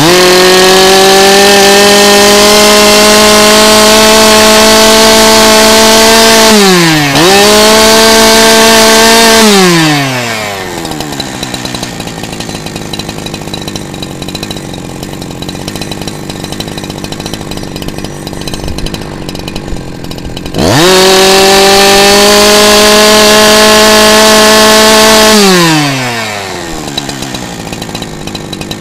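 Zimani 372XP PRO two-stroke chainsaw engine revved to full throttle and held there, with a brief dip about seven seconds in. It drops back to idle, then is revved to full throttle again about twenty seconds in for five seconds before falling back to idle. These are full-throttle test runs while the carburetor is set with a screwdriver against a tachometer.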